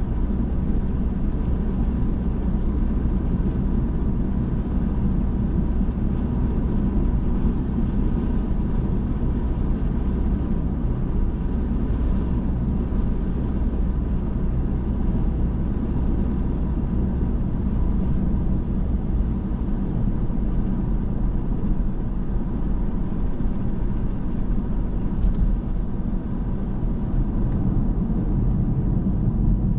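Car driving along a road: steady engine and tyre rumble with a faint engine hum, shifting slightly in tone about two-thirds of the way through.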